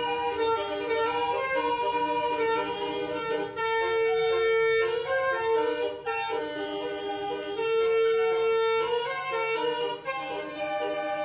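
Bus basuri (telolet) multi-tone musical horn playing a melody, stepping from note to note with a long held note about four seconds in and another near eight seconds.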